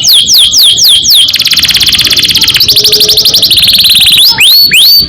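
Domestic canary singing: a string of quick downward-slurred whistles, then a fast rolling trill (ngerol) for about three seconds that shifts to a lower, different trill partway through, then back to slurred whistles near the end.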